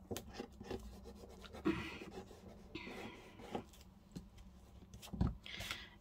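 Paper being handled and rubbed down on a craft card: short scratchy rustles and light clicks, with one dull knock about five seconds in as the loudest sound.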